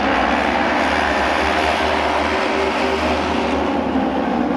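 Several auto race motorcycles with 600 cc two-cylinder engines running together at speed around the oval track, a steady, unbroken mix of engine notes.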